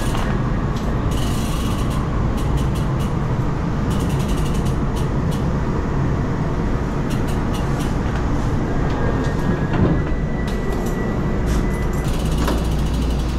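Steady low rumble of a moving vehicle, with scattered short clicks throughout and a faint thin high tone for a few seconds near the end.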